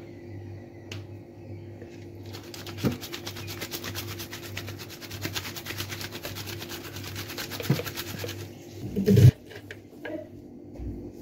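Perforated plastic basket of whole small fish shaken rapidly to coat them with turmeric and salt: a fast, even rattling that runs about six seconds, followed by a single loud thump.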